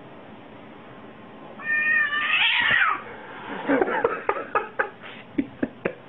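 Domestic cat giving one drawn-out yowl that holds its pitch and then rises and falls, followed by a quick run of about eight short, sharp sounds.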